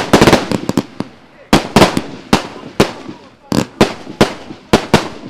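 Haokan Fireworks 'Way of the Dragon' multi-shot fireworks cake firing: sharp bangs of shots and aerial bursts in quick clusters of several a second, separated by short gaps.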